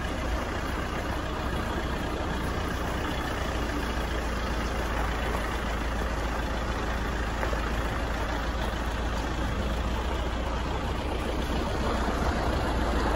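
Game-drive vehicle's engine running as it creeps along a dirt road, a steady low rumble that gets a little louder near the end.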